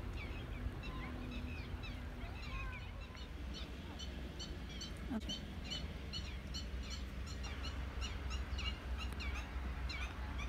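Many small birds chirping at once in a dense, overlapping chorus of short calls, growing busier about halfway through, over a steady low rumble.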